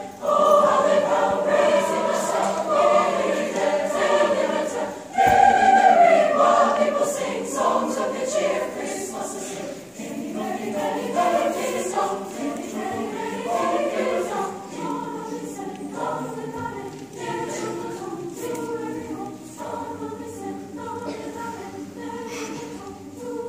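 Large mixed high school choir singing, loud for the first several seconds, then softer after about ten seconds.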